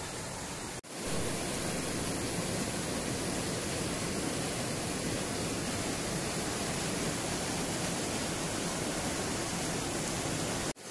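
Rushing mountain stream tumbling over rocks in small cascades: a steady, even rush of water. It cuts out for an instant about a second in and again near the end.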